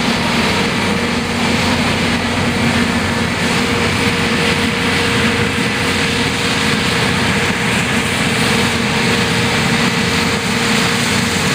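New Holland CX8.70 combine harvester running steadily while harvesting wheat: an even engine drone mixed with the rushing noise of the threshing and residue spreading, holding level throughout.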